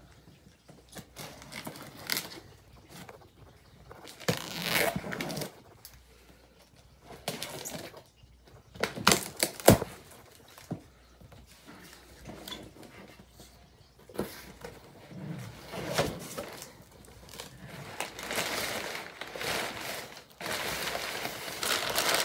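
A cardboard shipping box being opened and brown kraft packing paper pulled out and crumpled: irregular rustling and tearing, with a few sharp rips about halfway through that are the loudest sounds, and a longer stretch of heavy paper crinkling near the end.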